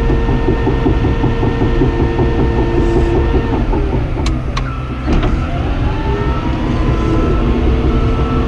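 Cat D5N XL bulldozer's diesel engine running under load while pushing dirt, heard from the cab, with its tracks clattering. About halfway through the engine note dips, a few sharp clicks come, and the note then climbs back up.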